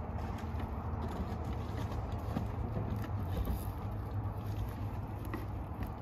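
Shingles being torn off a house roof: faint, irregular taps and knocks of the tear-off, over a steady low rumble.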